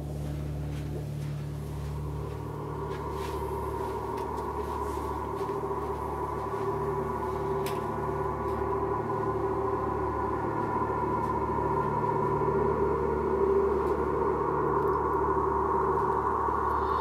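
Sustained droning soundtrack tones, a low hum under ringing mid-range tones, swelling slowly louder as tension-building film score.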